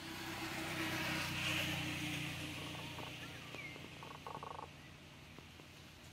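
A motor vehicle passing by, its engine hum and road noise swelling to a peak about a second and a half in and then fading away, with a few faint short chirps partway through.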